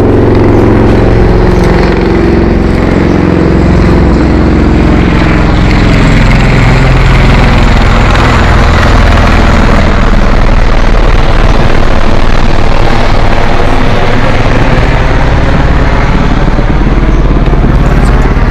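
Vehicle engine running steadily, very loud and close to the microphone.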